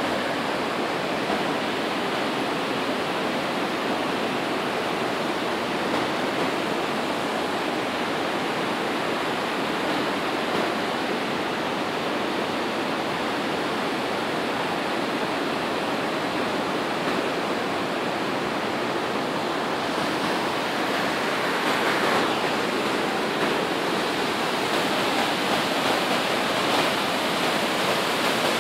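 Hogenakkal Falls: a waterfall and white-water rapids rushing through a rocky gorge, a steady roar of falling water that grows a little louder in the last third.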